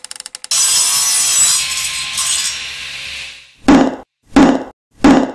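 Intro sound effects: a sawing sound for about three seconds, fading out. Then three loud, heavy thuds about two-thirds of a second apart.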